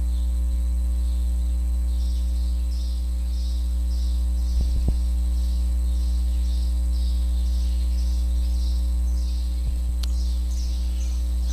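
Steady, loud electrical mains hum with a stack of overtones, with faint high chirps repeating about twice a second through most of it.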